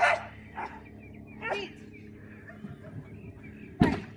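A dog barking in about four short, sharp barks, the loudest near the end.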